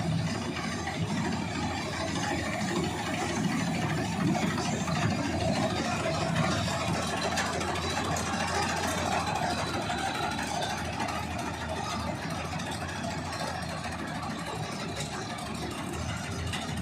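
John Deere 5310 tractor's diesel engine running steadily while driving a Standard TSC-513 tractor-mounted combine harvester, with an even machine clatter and hiss over the engine.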